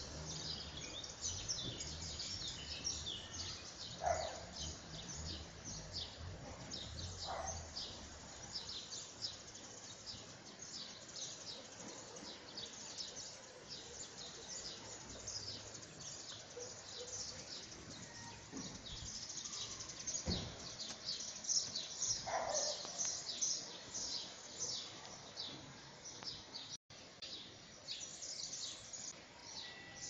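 Birds singing: a dense, continuous chorus of quick high chirps, with a few separate lower calls standing out. A low rumble underneath fades out in the first third.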